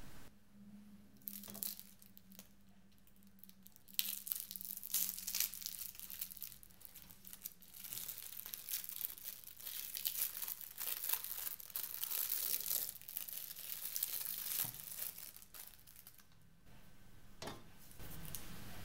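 A wrapper crinkling and tearing as it is pulled off a wedge of blue cheese by hand. It starts about four seconds in and crackles on and off for about twelve seconds.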